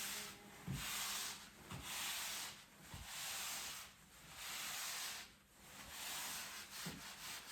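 Fiberglass wall covering being smoothed onto a glue-wet wall: about five long scraping strokes, each roughly a second, with short pauses between them.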